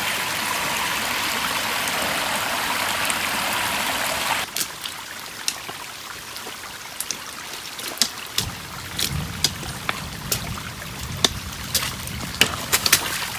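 Rainwater runoff rushing down a flooded rocky trail in a steady, even rush. About four seconds in it drops abruptly to a quieter flow with scattered sharp taps and ticks.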